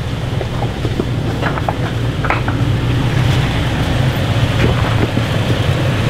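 Off-road vehicle engine running steadily under load as it crawls over a rocky trail obstacle, with scattered short cracks and crunches of rock under the tyres.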